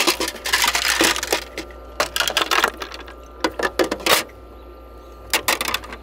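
Irregular clicking and clattering in four short bunches, with brief pauses between: the sound of small hard objects being handled.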